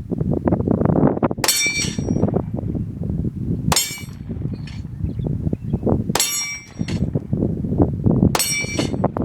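Four 9mm shots from a Glock 19 about two seconds apart, each sharp crack followed by the high ringing clang of a steel dueling-tree plate being hit.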